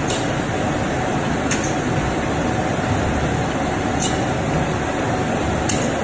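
An automatic saw blade washing machine running with a steady noise, broken four times at uneven intervals by a short, sharp hiss of air from its pneumatic cylinders.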